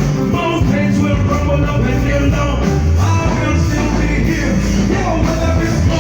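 Loud band music at a sound check, with heavy bass and a singing voice over the instruments.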